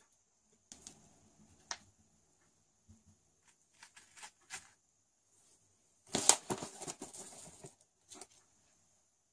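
Ground coffee being scooped with a metal measuring spoon and tipped into a paper filter in a pour-over dripper: scattered light taps and rustles. About six seconds in comes a louder rustling stretch of about a second and a half.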